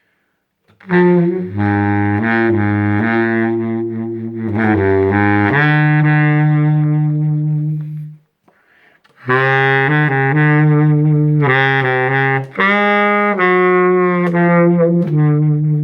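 Baritone saxophone fitted with a 3D-printed mouthpiece playing a calm melody in long-held low notes. There are two phrases, with a breath pause of about a second between them.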